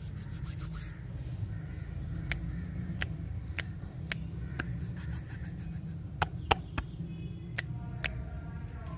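About ten sharp, irregular clicks from hands working over wrapped stick lollipops, over a steady low rumble. A few faint chirps come near the end.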